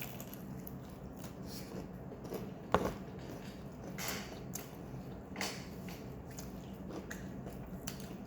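A person biting into and chewing food, with scattered small mouth and handling noises and one sharp knock about three seconds in, over a low steady hum.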